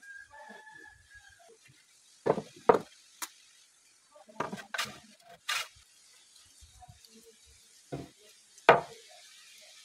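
Heavy teak planks knocking together as a loose board is lifted and set down on the edge of the board below, about seven sharp wooden knocks at irregular intervals.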